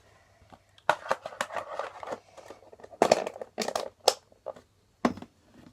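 Slime being squeezed and worked by hand close to the microphone: irregular wet squelches and crackles.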